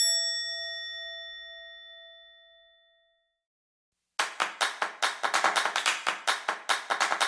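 An editing sound effect: a single bell-like ding that rings out and fades over about three seconds. After a second of silence, a quick run of sharp clicks, about five a second, like a text-typing effect.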